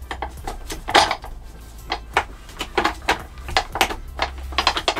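Plastic and metal parts of a Mainstays office chair knocking and clicking as the corrugated plastic cover is worked onto the backrest upright. A series of sharp clicks, the loudest about a second in, with a quick run of them near the end.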